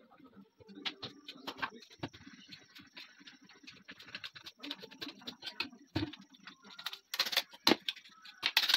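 Quick small clicks and clinks of metal parts as a 12-bore double-barrel shotgun's action is handled and taken apart by hand, with louder metallic clatters about seven seconds in and near the end.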